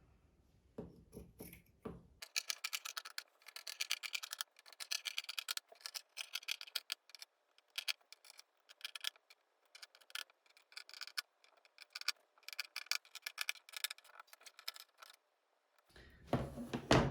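Scissors snipping through shirt fabric in quick runs of small clicks, cutting fringe along the bottom of the shirt. A louder handling sound comes near the end.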